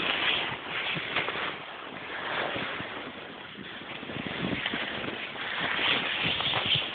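Irregular rustling and scraping handling noise from a phone microphone being rubbed and jostled while moving through snow.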